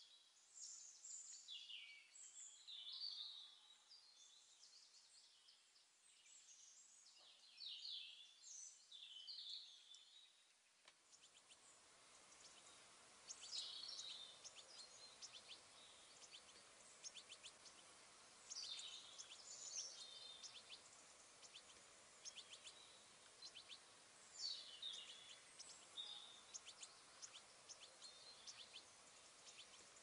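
Small pet birds chirping and calling over and over in short, high calls. A faint steady hiss in the background gets louder about eleven seconds in.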